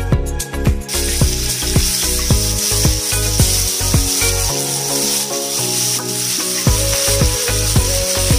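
Marinated chicken pieces sizzling as they go into hot oil in a frying pan, the sizzle starting about a second in, over background music with a steady beat.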